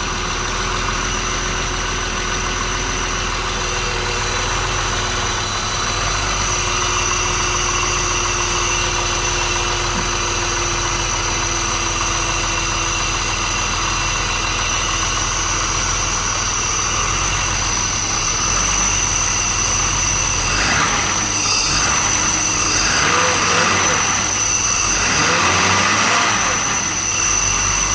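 BMW 635CSi's M30 straight-six idling steadily with its throttle body exposed, running on its idle control valve while being checked for a rough idle.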